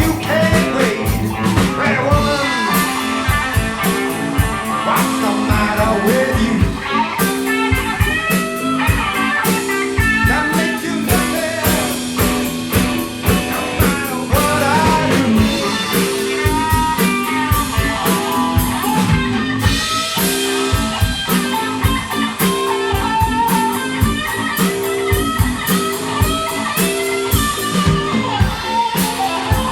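Blues band playing an instrumental stretch: electric guitar lead lines that bend in pitch, over a steady drum kit beat and bass.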